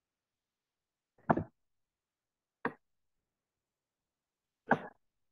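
Three short, sharp computer mouse clicks, about a second and a half apart.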